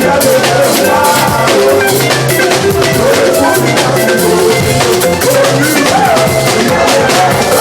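Loud live church music: a drum kit keeps a steady beat under a bass line, with a choir singing over it.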